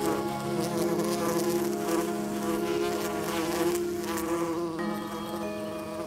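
Paper wasp beating its wings in place on the nest: a steady, pitched buzzing drone.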